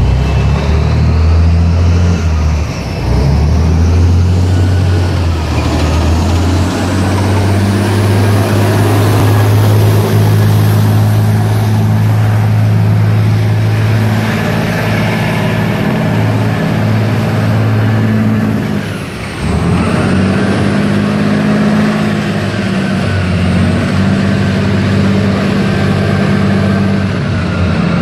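US Army tracked armoured vehicles, among them an M1 Abrams tank with its gas-turbine engine, driving past with engines running in a steady low drone. A high whine glides up and down above the drone.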